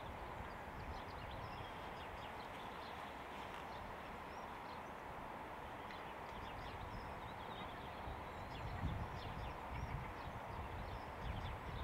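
Hushed outdoor ambience of a minute's silence at a football ground: small birds chirping now and then over a low rumble of wind on the microphone, which turns gustier near the end.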